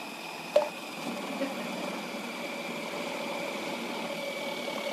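Electric food processor motor running steadily with a constant whine while it shreds cabbage fed down its chute. There is a single knock about half a second in.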